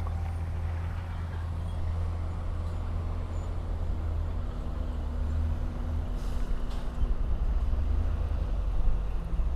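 Diesel engine of heavy earthmoving machinery running steadily, a low drone, with a faint higher steady tone joining for a few seconds in the middle.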